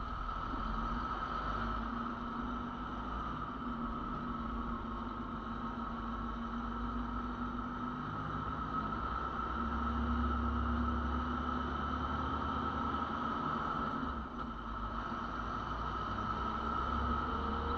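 Semi-trailer truck's diesel engine running while driving, a steady hum with tyre and wind noise. The low rumble grows a little louder about ten seconds in.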